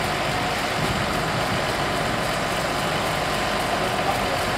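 Farm tractor engine running steadily at an unchanging speed, with a steady whine above it.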